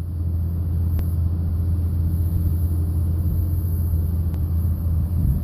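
Diesel engine of heavy equipment running steadily, a continuous low rumble.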